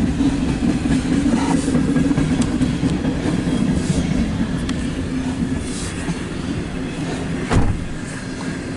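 CSX intermodal freight train rolling past, a steady rumble of wheels on rail that eases slightly over the seconds, with one sharp clank near the end.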